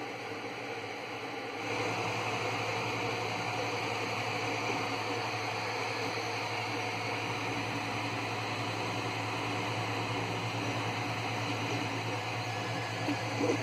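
3D printer's cooling fans running, a steady whirr with a low hum that gets louder about two seconds in.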